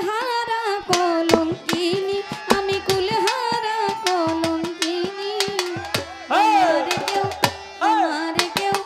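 A woman singing a Bengali baul song into a microphone in long held, wavering notes with sliding ornaments, over a hand drum beating about twice a second.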